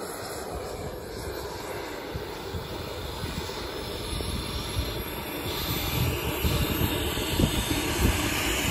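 Turbine engine of a 1/5-scale BVM F-16 RC model jet in flight, heard at a distance as a steady rushing jet noise with a faint high whine. A low rumble grows louder after about six seconds.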